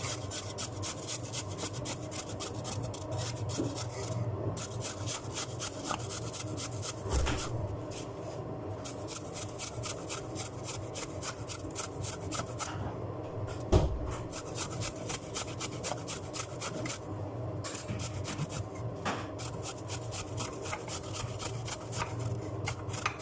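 Fresh ginger root being grated on a small hand grater: a fast, even run of rasping strokes, about four a second, with a couple of dull knocks along the way.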